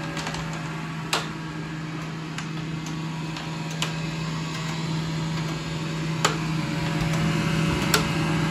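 Morus portable clothes dryer running just after being switched on: a steady motor hum under the rush of its fan and turning drum, growing slowly louder, kind of loud. A few sharp clicks sound over it.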